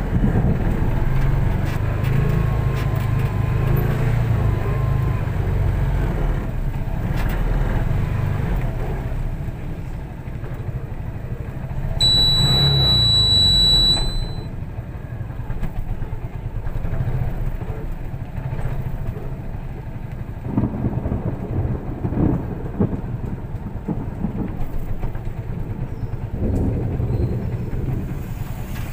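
Car driving: a steady low rumble of engine and road noise, with a steady high-pitched beep lasting about two seconds near the middle.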